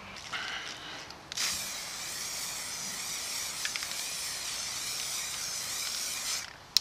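Aerosol spray can of grey primer spraying in one continuous hiss of about five seconds, starting about a second and a half in and cutting off near the end.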